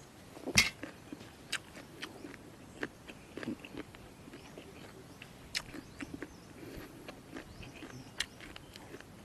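Close-up crunchy chewing of jellyfish salad: irregular crisp crunches and wet clicks in the mouth, the loudest about half a second in.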